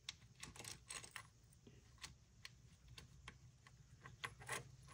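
Faint, irregular small metallic clicks as the timing chain and cam sprocket of a Honda Foreman 450 engine are worked by hand while setting the cam timing, over a low steady hum.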